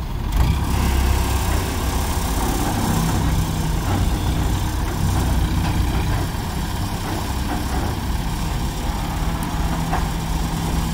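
Diesel engines of ACE 14XW hydra mobile cranes running steadily with a low hum while the cranes hold a heavy compressor on their hooks.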